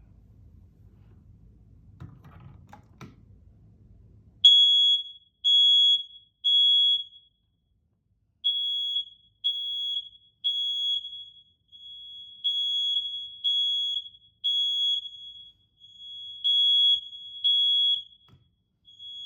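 First Alert smoke alarms sounding their test alarm. After a few faint clicks, loud high-pitched beeps start about four seconds in, in groups of three with a pause between groups (the temporal-three evacuation pattern). Partway through, a second, fainter alarm beeps slightly out of step with the first.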